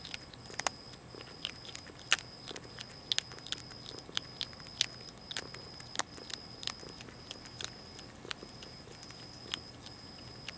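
Young Virginia opossum crunching dry cat food: sharp, irregular crunches, several a second, some much louder than others.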